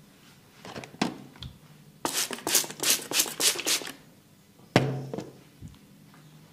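Hands striking during a head massage: a single slap about a second in, then a quick run of about nine rhythmic slaps, four or five a second, and one sharper slap near the end.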